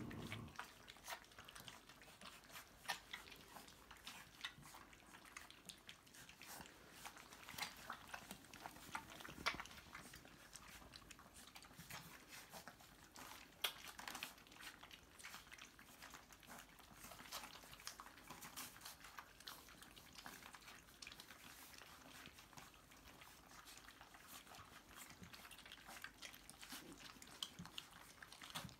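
A litter of puppies eating together from a stainless steel ring feeder: constant faint wet chewing and lapping, with many small irregular clicks and smacks.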